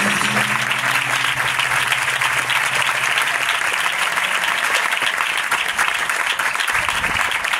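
Audience applauding steadily, with the last held guitar note of a flamenco song dying away under the clapping during the first few seconds.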